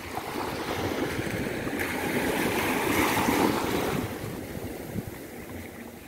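Sea waves washing onto a sandy beach: the surf swells up over about three seconds and then draws back and fades.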